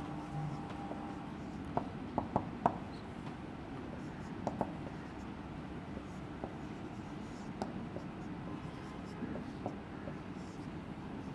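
Marker writing on a whiteboard: short sharp taps and strokes of the tip against the board, a cluster of them about two seconds in and scattered single ticks after, over a steady low room hum.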